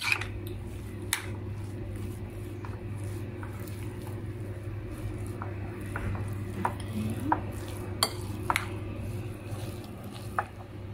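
A metal spoon stirring shredded chicken and mayonnaise in a ceramic bowl, with a few sharp clinks against the bowl, over a steady low hum.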